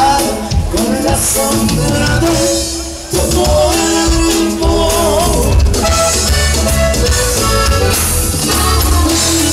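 Live norteño band music for dancing: steady pitched melody lines over a pulsing bass and drum beat, with some singing. The music dips briefly about three seconds in, then picks up again.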